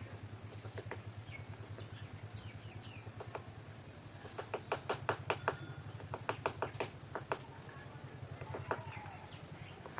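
A woodpecker pecking at an areca palm trunk as it bores a nest hole: faint, two runs of quick even knocks, about five a second, around the middle, with short high bird chirps scattered throughout.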